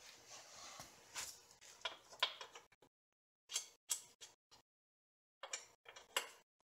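Hand tool clicking in short bursts with metallic clinks, typical of a ratchet wrench tightening nuts to lock down the motorcycle's rear chain adjustment.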